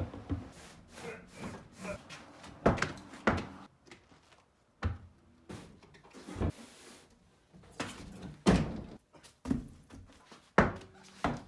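A string of irregular knocks and clunks, about a dozen separate thuds a second or so apart, from tools and lug nuts being handled at a truck wheel.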